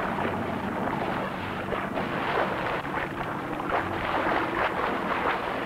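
Steady rushing wind and water noise with crackly splashes, over a low hum from a fishing boat's engine running.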